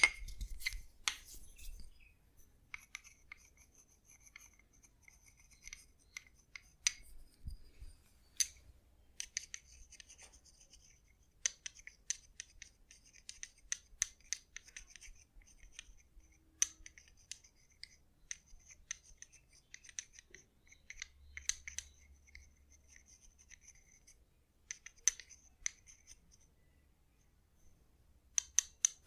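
Hands working through hair and scalp, giving quick, crisp, irregular clicks and scratches in clusters.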